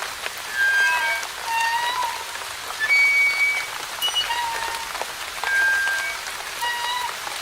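Rusty old swing squeaking as it swings back and forth: a high creak with several tones, repeating about every second and changing pitch from squeak to squeak. Light rain patters steadily underneath.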